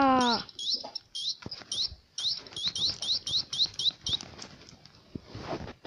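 A quick run of short, high, rising chirps, about three to four a second, stopping about four seconds in.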